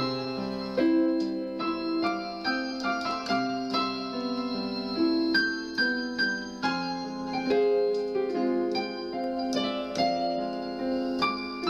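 Solo piano music: a melody of struck notes that ring on over held chords.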